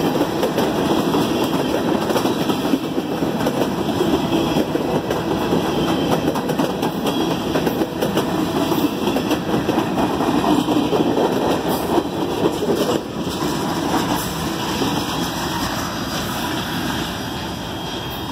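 Freight cars of a passing Norfolk Southern train rolling by on the rails: a steady wheel-on-rail rumble with scattered clicks over rail joints, easing off a little near the end as the last cars go by.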